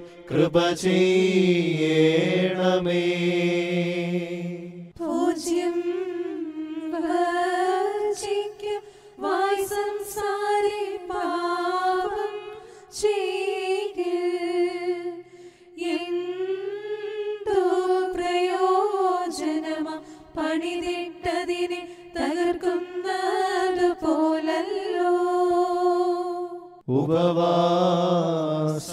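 Malankara Syriac Lenten liturgical chant: a slow, ornamented melody sung with wavering held notes. The singing is fuller and lower at the start and again near the end, with a faint low held note beneath the middle part.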